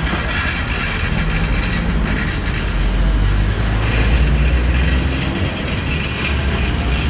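Low engine rumble of a motor vehicle, loudest about three to four seconds in, over busy outdoor background noise.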